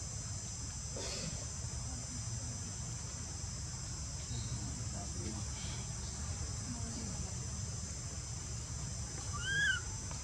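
Insects chirring steadily, several high even tones together. Near the end comes one short, high call that rises and falls, the loudest sound here.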